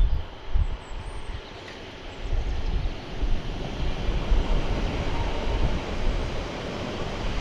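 A train running on the line below, its noise building from about two seconds in, with wind buffeting the microphone.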